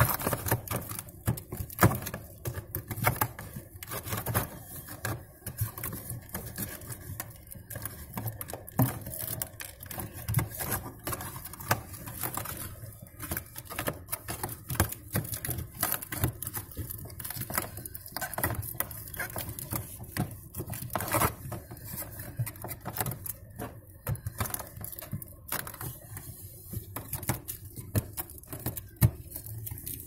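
Irregular crinkling, clicking and scraping as a hand works at plastic-wrapped ice and foil in a refrigerator freezer compartment jammed with built-up ice.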